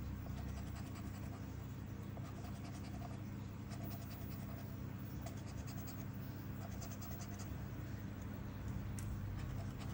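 Scratching the coating off a lottery scratch card, in short runs of quick scraping strokes, over a steady low hum.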